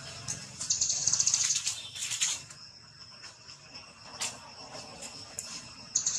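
Outdoor ambience: a rapid, high-pitched clicking trill about a second long, starting just under a second in, over a steady thin high whine. A second trill starts near the end.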